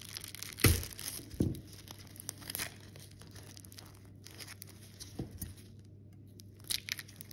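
Adhesive tape being peeled and pulled off a wristwatch, crinkling and tearing in irregular crackles, with two short knocks about a second in.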